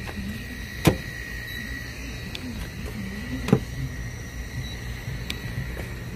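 Two sharp taps, about a second in and again after three and a half seconds, as the probe of a handheld paint thickness gauge is set down on the car's steel body panel to take readings. A steady low hum with a wavering tone runs underneath.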